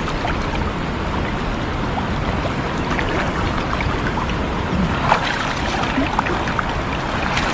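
Steady rush of river current around a person wading, with splashes and dripping as a wet cast net is hauled up out of the water; the biggest splash comes about five seconds in.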